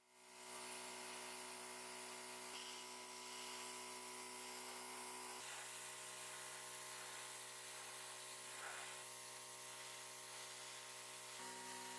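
Small portable airbrush compressor switching on and running steadily, a hum with a hiss of air as the airbrush sprays paint; the hum shifts slightly near the end.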